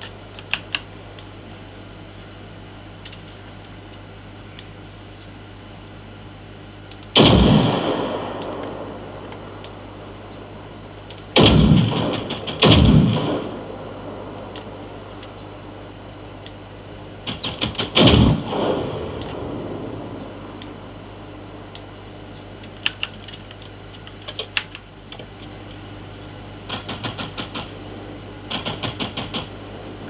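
Video-game gunfire heard through desktop speakers: four heavy rifle shots, each trailing off in a long rumbling echo, then short rapid bursts of automatic fire near the end. A steady low hum runs underneath.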